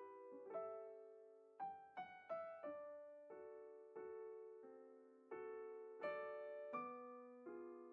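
Quiet solo piano music: slow single notes and chords, each struck and left to fade.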